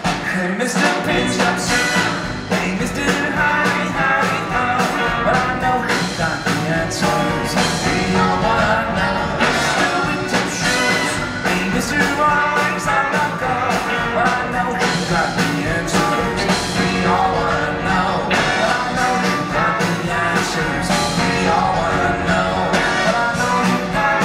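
Swing band playing live: saxophones, electric guitar, drum kit, piano and upright bass, with a steady driving beat.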